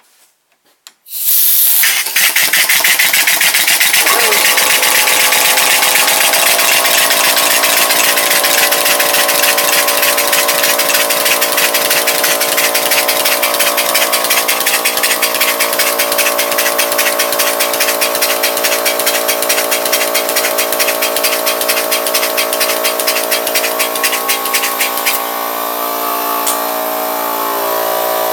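Converted 3.5 hp Briggs & Stratton lawnmower engine running on compressed air: a loud rush of air with rapid, fast chuffing, joined about four seconds in by a steady hum as the engine and its brake-rotor flywheel come up to speed. It runs on evenly and is slightly quieter in the last few seconds.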